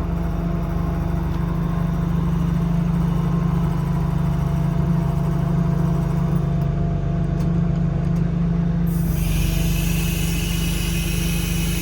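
Cummins 8.3 ISC diesel engine running steadily. About nine seconds in, a steady high hiss starts suddenly and carries on over the engine.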